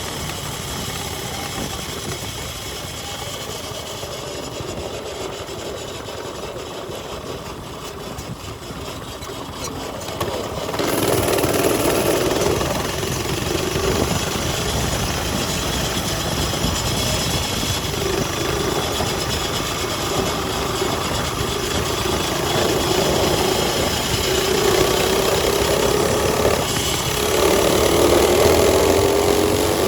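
Mini bike engine running, quieter at first, then louder from about a third of the way in, with the pitch climbing near the end as it is revved.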